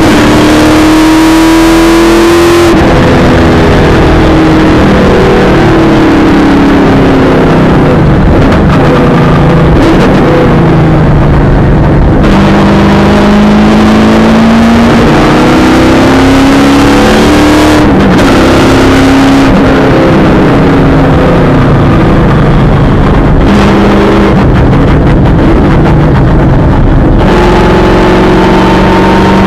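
V8 supercar engine heard from inside the cockpit at race pace, loud throughout. Its note climbs under acceleration and drops back sharply again and again as the driver changes gear and lifts for corners, over a constant rush of road and wind noise.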